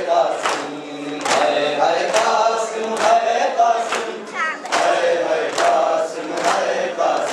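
A congregation of men chanting a noha together while beating their chests in unison (matam), with the hand-on-chest slaps landing in a steady beat a little faster than once a second.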